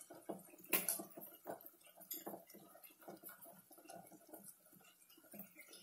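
Faint clinks and taps of a small spoon against a steel spice bowl and cooking pot as spices are added, with one sharper click about a second in.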